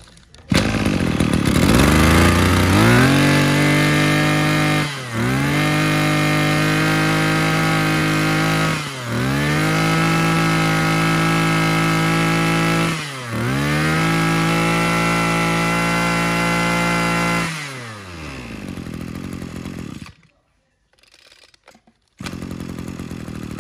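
Maruyama 23cc two-stroke brush cutter engine starting and revving up, held at high revs with three brief throttle dips about five, nine and thirteen seconds in, then slowing to a stop. A shorter, quieter noise follows near the end.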